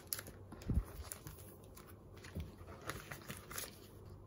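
Handling and setting down photobooks and a photo card: light paper and card rustles and taps, with a soft thump about three-quarters of a second in and a smaller one a little past two seconds.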